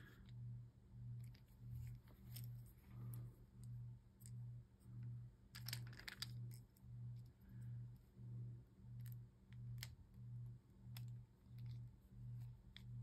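Near silence: a faint low hum that swells and fades about one and a half times a second, with a few faint clicks.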